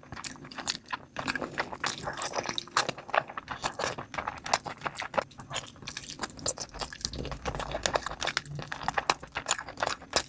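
Close-up eating sounds of a person biting meat off the bone and chewing saucy curry and rice: a steady run of many small wet smacks and clicks.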